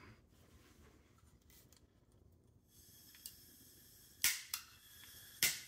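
Handheld gas torch being lit: a faint hiss of gas starts about halfway through, then the push-button igniter clicks twice, the flame not yet catching.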